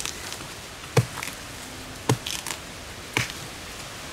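A knife chopping into a felled coconut palm trunk: three chops about a second apart.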